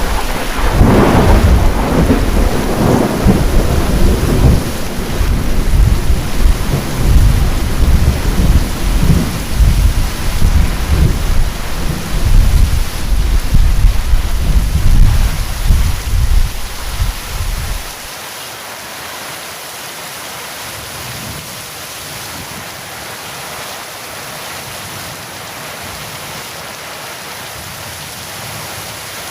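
Heavy rain falling steadily under a long peal of thunder: a sharp crack about a second in, then a deep rolling rumble that stops abruptly about two-thirds of the way through, leaving only the steady hiss of the rain.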